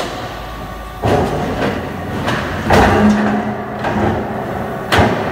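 Steel beam travelling on the motorised rollers of a Ficep CNC cutting-line conveyor, rumbling over the rollers with heavy metal clunks about a second in, near three seconds and near the end.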